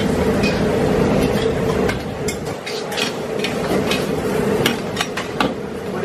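Metal spatula scraping and clanking against a steel wok as rice noodles are stir-fried, in repeated irregular strikes over a steady rushing background.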